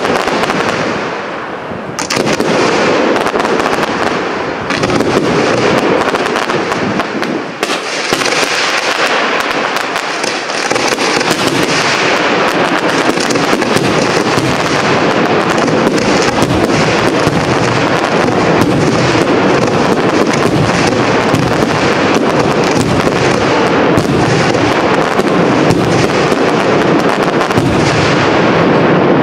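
Aerial fireworks shells bursting in a dense, unbroken barrage, their bangs running together into a continuous loud crackle.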